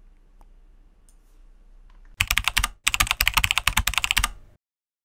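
Computer keyboard typing sound effect: a rapid run of keystroke clicks, one per letter as a title types on, starting about two seconds in with a tiny break, lasting about two seconds and cutting off suddenly.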